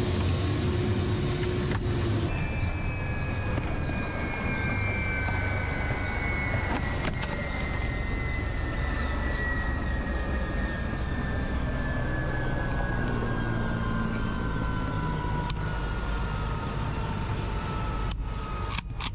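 Helicopter noise, loud and broad for the first two seconds. After a sudden change it becomes a steady low rumble under a thin whine that falls slowly and evenly in pitch, typical of turbine engines winding down.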